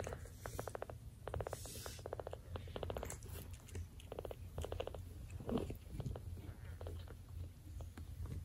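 A cat purring right at the microphone: short runs of rapid, even pulses with brief breaks between them, over a steady low rumble, while kittens nurse.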